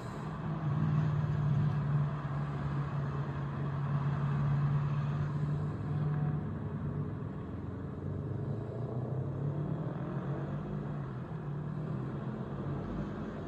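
A motor vehicle's engine and tyres, a steady low hum that swells about a second in and then slowly fades.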